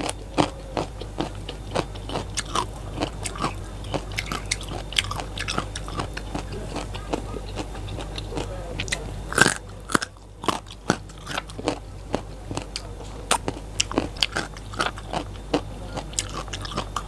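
Close-miked chewing of raw lalapan vegetables: a steady run of crisp crunches, several a second, with one louder bite about nine and a half seconds in and a brief pause just after it.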